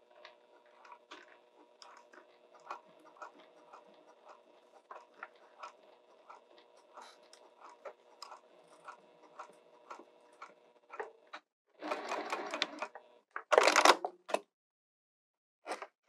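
Sewing machine running slowly, stitching a D-ring tab onto a faux-leather bag: a steady motor hum with irregular needle clicks that stops about eleven seconds in. Then come short bursts of rustling and handling, the loudest about two seconds before the end.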